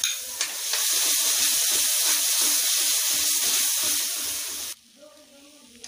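Tomato, ginger and green-chilli puree sizzling loudly as it hits hot mustard oil in a kadhai and is stirred. The hiss stops suddenly about four and a half seconds in.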